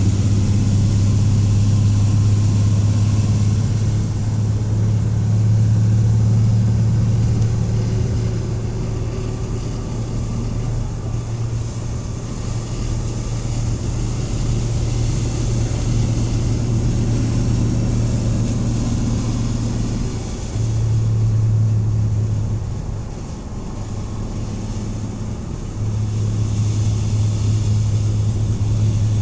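A 1984 Dodge van's engine running while driving, a steady low drone heard from inside the van, growing louder and softer several times.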